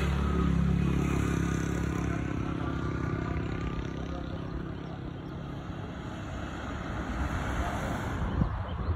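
A motor vehicle's engine running, its hum fading slowly over several seconds, with a short click near the end.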